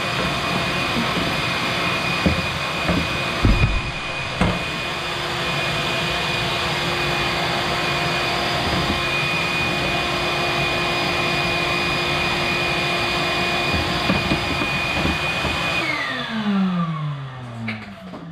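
Vacuum cleaner running steadily as its hose sucks up dried mud from around the fuel pump on the tank top, with a few knocks of grit and the hose against the frame. Near the end it is switched off and its motor winds down, the whine falling in pitch.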